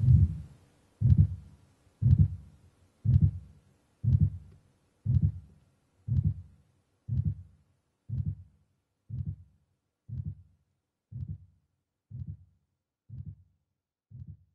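Heartbeat played back as sound by the ExoBuilding tent installation, a person's pulse made audible. Low thumps come steadily about once a second and slowly fade out.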